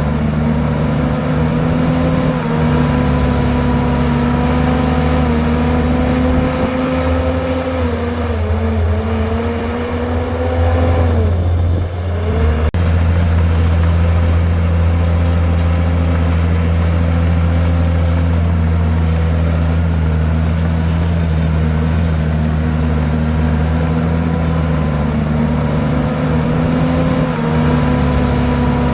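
Komatsu bulldozer's diesel engine running steadily while it pushes rocks and soil. About eleven seconds in its pitch sags briefly under load, then recovers, with a smaller dip near the end.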